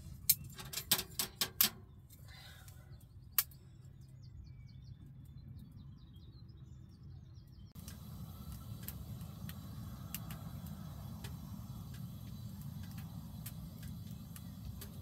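Pieces of wood knocked into the firebox of a small wood-burning tent stove, a few sharp knocks in the first two seconds and one more a little later. From about eight seconds in, the wood fire burns with scattered crackles over a steady low rumble.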